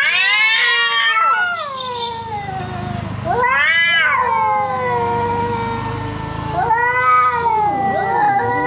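Cats caterwauling: long, drawn-out yowls that rise and fall in pitch, swelling up again three times, as in a standoff between fighting cats.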